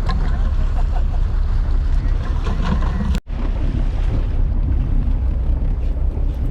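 Boat motor running steadily under way, with wind buffeting the microphone and water rushing past the hull. The sound cuts out for an instant about three seconds in, then carries on.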